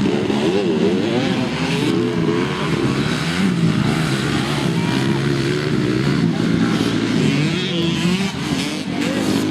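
Several motocross bike engines racing at once, their overlapping revs rising and falling without a break.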